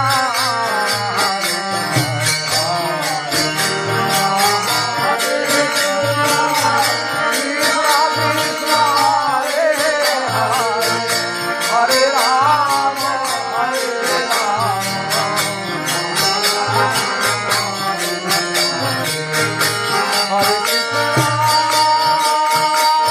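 Indian devotional sankirtan music: a melody glides over a steady held drone, with small metal percussion jingling in time.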